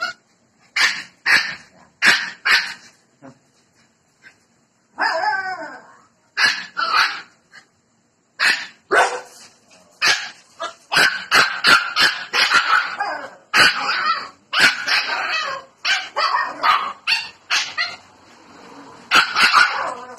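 Siberian huskies barking in short bursts, with one longer wavering call about five seconds in, and barking coming thick and fast from about ten seconds on.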